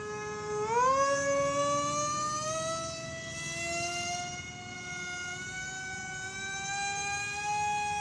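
Homemade airplane's motor and propeller running with a steady high-pitched whine. A little under a second in, the pitch jumps up, then keeps climbing slowly and evenly as the throttle opens, and levels off near the end.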